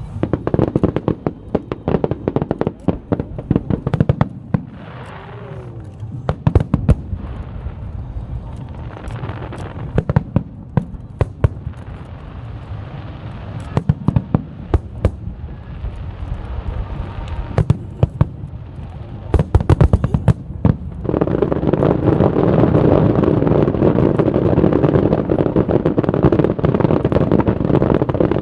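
Fireworks and firecrackers going off: an irregular run of sharp bangs and pops, then about two-thirds of the way through a dense, loud, continuous crackle takes over.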